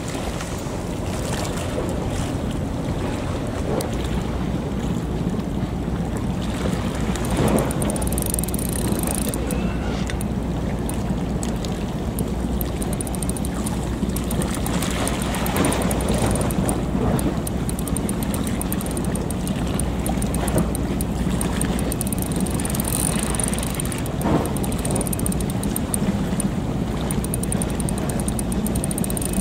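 Steady low rumble with a constant hum under it, mixed with wind and water noise, and a few faint soft knocks.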